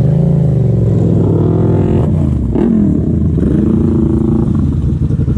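Yamaha MT-07's 689 cc parallel-twin engine running loud through an Arrow exhaust with the dB killer removed, revving up twice: the pitch climbs for a second or two, drops back, then climbs again.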